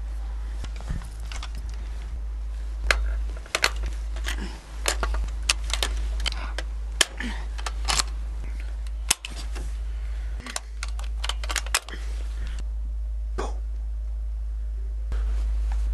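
Metallic clicks and clacks of a scoped bolt-action rifle being handled and assembled, over a steady low drone.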